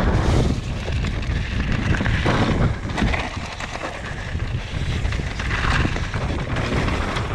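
Wind buffeting a head-mounted camera's microphone as a mountain bike rides down a trail, a steady low rumble with a few knocks and rattles from the bike over rough ground.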